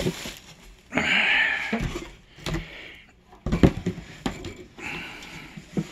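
Portable tankless water heater being pulled out of its cardboard box: cardboard scraping and rustling, with several knocks, the loudest about three and a half seconds in.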